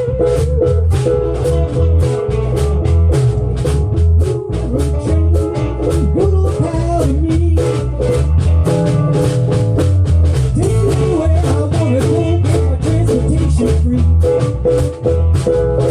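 Live band playing with a steady drum beat, bass and a lead melody line, likely guitar, weaving over the top.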